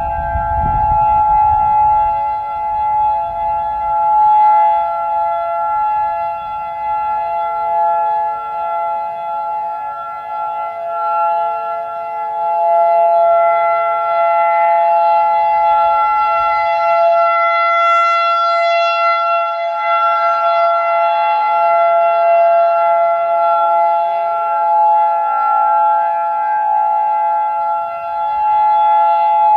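Outdoor warning sirens holding a steady alert tone together, led by a nearby Federal Signal 2001-DC rotating siren and a Modulator 4016B, with more distant sirens chording beneath. The level swells and fades every several seconds as the sound sweeps around. Wind rumbles on the microphone in the first seconds.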